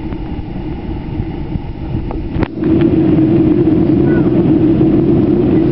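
Airliner cabin noise: a steady jet-engine drone with a low hum. A short click comes about two and a half seconds in, and after it the drone is louder.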